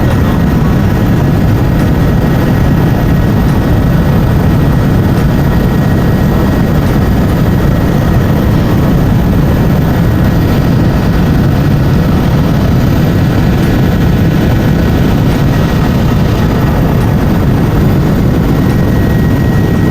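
Helicopter in flight: loud, steady rotor and engine noise.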